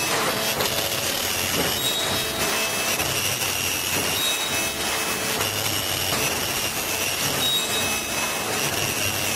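KN95 mask-making machine running: a steady mechanical noise, with short high-pitched tones that come and go every second or two.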